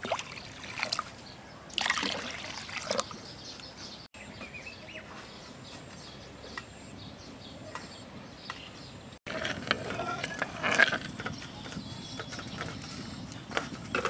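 Water poured from a steel bowl into a wide aluminium pan of sugar, in separate splashing pours, with a quieter stretch in the middle; the sound cuts out briefly twice.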